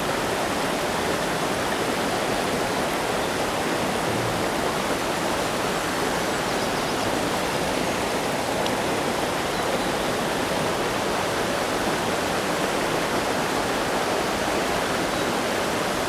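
Steady rush of a rocky mountain headwater stream, water pouring over boulders and small cascades.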